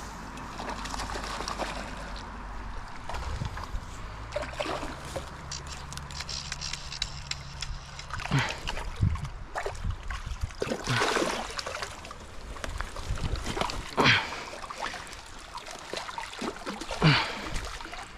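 Creek water running, with a series of short splashes from about eight seconds in as a hooked trout is played at the surface and brought in.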